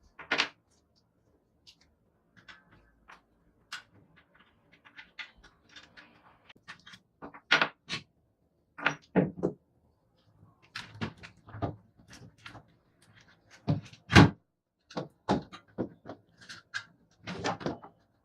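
Irregular knocks, clicks and clanks of an old, rusty children's scooter's metal parts being handled and worked on, with a few louder knocks among lighter taps.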